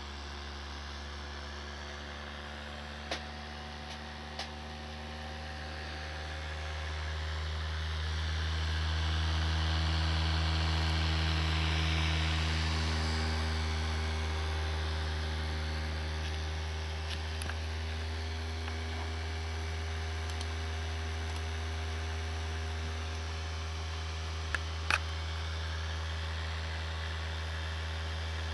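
Newly replaced CPU cooler fan running with an abnormal low hum and several steady tones, swelling louder about a third of the way in and easing off again. A few short clicks, the sharpest near the end.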